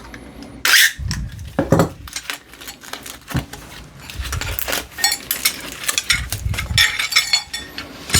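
Old steel files clinking and clattering against each other as they are unpacked and handled, with a short sharp noise about a second in and a run of ringing metallic clinks in the second half.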